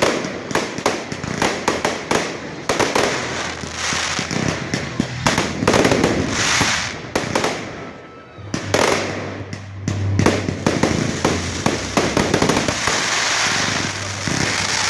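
Fireworks display: rapid, dense bangs and crackling from bursting shells, thinning out briefly about eight seconds in, then building again.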